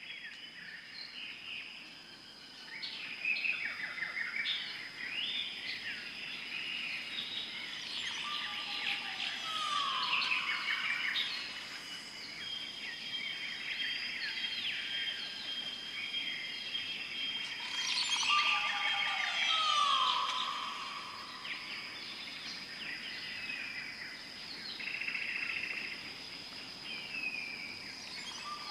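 Jungle ambience: many birds calling and chirping at once over a steady high-pitched drone. A lower call that slides downward comes round about every nine to ten seconds, twice in full.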